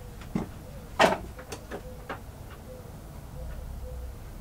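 Small tools and metal parts clicking and knocking while screws are worked on a nitro RC engine's pull-start. There is one sharper knock about a second in, followed by a few lighter clicks.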